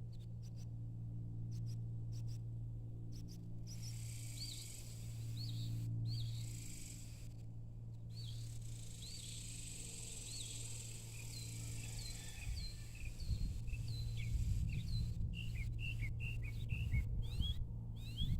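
Evening outdoor ambience: a steady high trill of crickets with a bird giving short repeated chirps that come faster near the end. A steady low hum runs underneath, and a low rumble joins it from about two-thirds of the way in.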